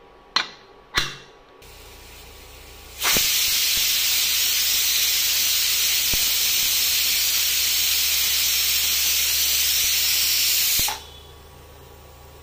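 Aluminium stovetop pressure cooker venting steam through its weighted vent: a loud, steady hiss that starts suddenly about three seconds in and cuts off abruptly about eight seconds later, a sign that pressure has built up inside. Two sharp clicks come first, and a low steady hum runs underneath.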